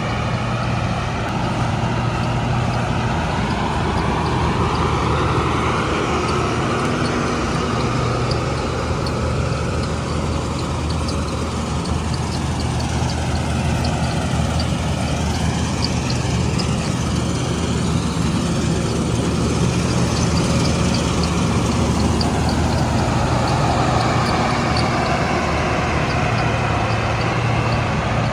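Combine harvester working a wheat crop: its diesel engine running steadily with a constant low hum, under the broad whirring noise of the machine, with no break in the sound.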